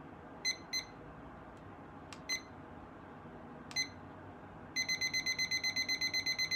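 Digital timer beeping: a few single beeps from its buttons being pressed, then about five seconds in it breaks into a fast, even run of beeps, about seven a second.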